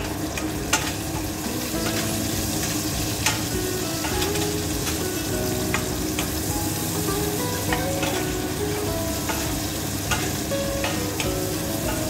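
Chicken pieces sizzling as they sauté in a stainless steel pot, stirred with a wooden spoon, with a steady hiss and the spoon knocking against the pot every second or so.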